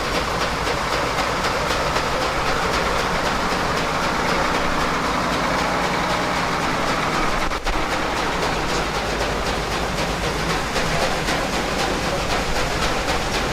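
Farm tractor engine running steadily, with one very short dip in level about halfway through.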